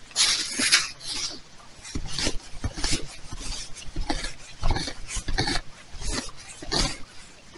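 Hand digging tool stabbing and scraping into dry leaf litter and soil, an irregular run of scraping strokes about two a second, as a metal-detector signal is dug out.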